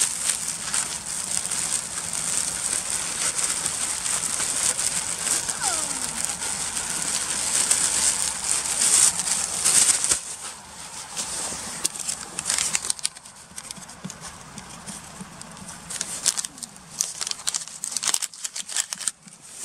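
Flour poured into a stainless-steel bowl: a steady dry hiss for about the first ten seconds. After that come softer, scattered rustles and clicks.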